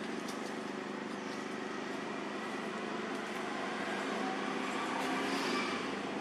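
Steady outdoor background noise, an even hiss and hum with no distinct event standing out.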